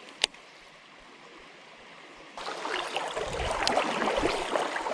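Flowing creek water, faint at first and then suddenly much louder about two and a half seconds in. There is a single sharp click near the start.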